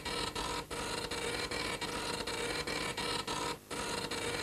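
Steady, machine-like noise with a fast, even flutter over a hum, breaking off briefly about three and a half seconds in.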